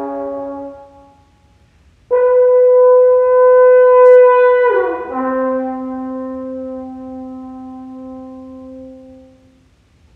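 French horn playing unaccompanied: a low held note fades out, and after a short pause a loud higher note is held for about two and a half seconds, then slides down about an octave into a long low note that slowly fades away.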